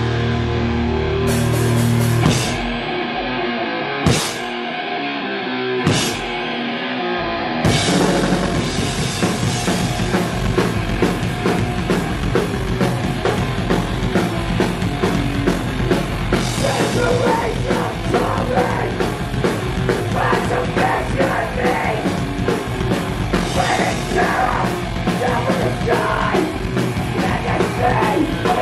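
Hardcore punk band playing live: distorted guitars hold a ringing chord, then a few single hits with gaps between them, and about eight seconds in the full band starts playing fast with drums and shouted vocals.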